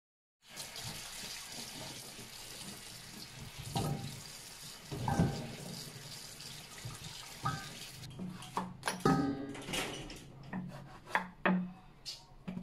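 Tap water running into a stainless steel bowl as eggplants are washed by hand, with a few knocks against the bowl. The water stops about eight seconds in, and sharp knocks follow: a knife cutting eggplant on a wooden chopping board.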